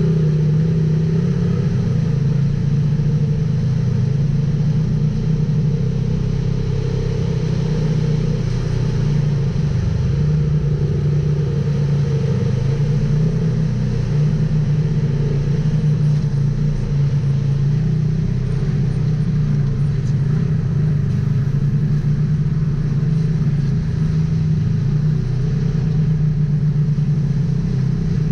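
Polaris RZR XP 1000 side-by-side's parallel-twin engine running at a steady, nearly constant pitch with only slight wavering.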